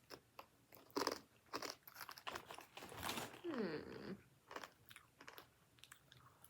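Someone chewing crunchy sea salt and cracked pepper pretzels: irregular crisp crunches as the pieces break between the teeth.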